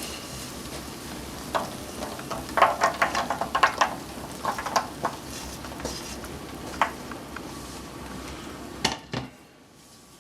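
Almonds being stirred in a pan of sugar, with a quick run of clicking, scraping strokes in the first half and a few single strokes later, over a steady sizzle. The sizzle drops away about nine seconds in.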